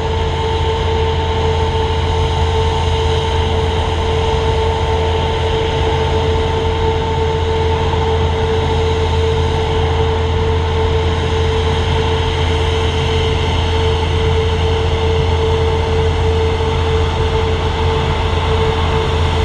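Jet engines running at taxi idle: a steady, unchanging whine over a low rumble.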